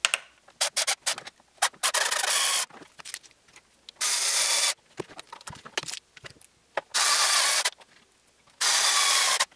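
Cordless electric screwdriver driving screws into a 3D-printed plastic seat, running in four short bursts of under a second each. Small handling clicks fall between the runs.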